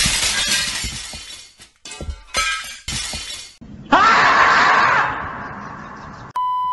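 Meme sound effects: a sudden glass-shattering crash at the start, then a long scream from the screaming-marmot meme clip beginning about four seconds in, rising in pitch as it starts. A steady electronic beep begins near the end.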